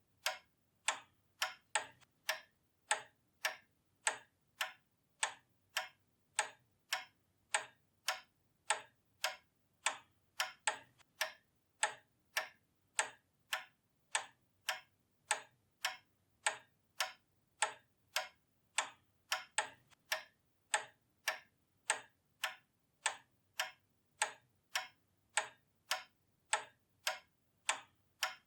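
Pendulum clock ticking steadily, its escapement giving evenly spaced sharp ticks, a little under two a second.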